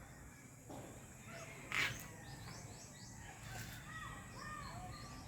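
Birds chirping faintly over steady outdoor background noise, with several short arched chirps in the second half. A single sharp tap a little under two seconds in.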